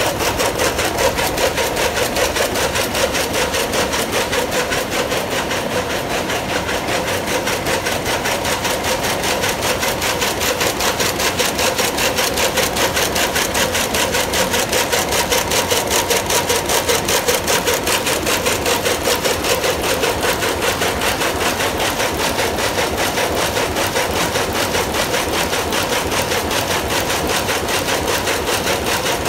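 Electronic jacquard rapier loom weaving at speed: a fast, even mechanical clatter with a steady tone underneath.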